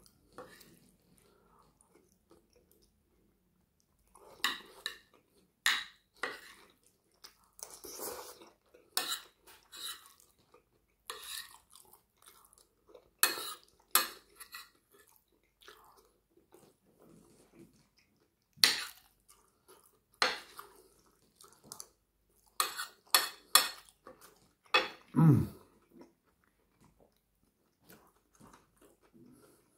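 Close-up eating sounds: cutlery clinking and scraping on a plate and mouth chewing of curry and rice, in short irregular bursts after a few quiet seconds. Near the end comes one louder, deeper knock.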